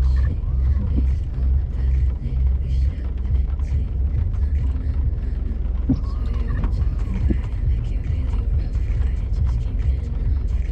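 Off-road vehicle engine running while driving a rough trail, a steady low drone with a few short knocks around the middle.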